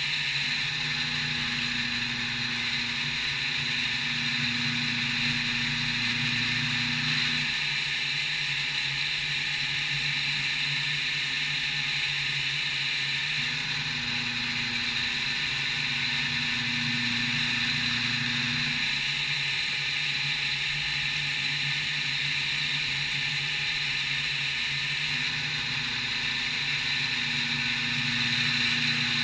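CNC milling machine running: a steady high whine over a hiss, with a lower hum that comes in for several seconds three times, near the start, midway and near the end.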